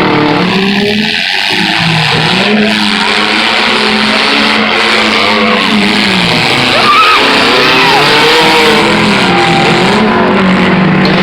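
Several demolition derby cars' engines running at once, revving up and down unevenly over a loud, steady noise.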